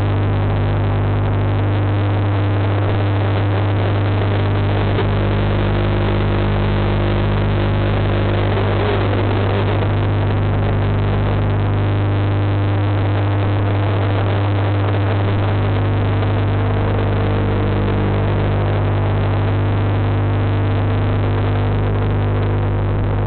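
Steady low mains hum with a hiss over it, typical of an aquarium pump heard through the water by a submerged camera. A few fainter tones above the hum come and go.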